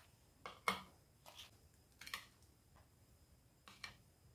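A few faint taps as fried sabudana vadas are set down one by one on a plate, the second tap the loudest, in an otherwise quiet room.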